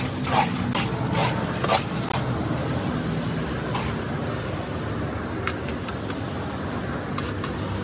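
Steady running hum of a motor-driven concrete mixer. In the first two seconds a scoop scrapes through the wet, gritty red chip mix in the basin about four times, and a few light clicks follow later.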